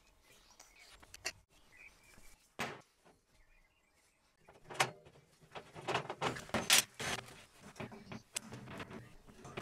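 Scattered clicks and knocks of pipe fittings and tools being handled while a propane burner is assembled. They are sparse and faint at first, then come thick and fast from about five seconds in.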